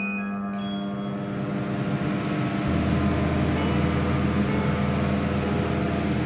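Kitchen chimney (range hood) blower fan running with a steady whooshing hum. A short beep sounds at the start, and a deeper hum joins about two and a half seconds in.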